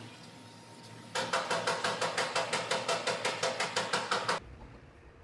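Aerosol spray can being shaken, its mixing ball rattling in a loud, even rhythm of about six clacks a second. The rattle lasts about three seconds and stops abruptly.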